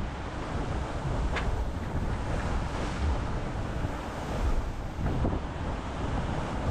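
Wind buffeting the microphone over the rush of water along the hull of an IMOCA racing yacht under sail, rising and falling in gusts, with a couple of brief hissing splashes.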